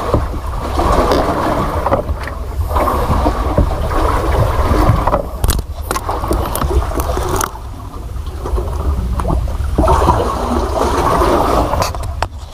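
Wind buffeting the microphone, with water sloshing around a small wooden boat at sea. The noise eases for a couple of seconds around the middle.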